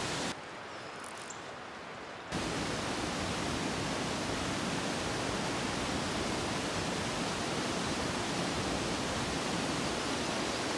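Steady rush of falling and flowing water from Vernal Fall and the Merced River, an even hiss. It drops away to a fainter hiss for about two seconds near the start.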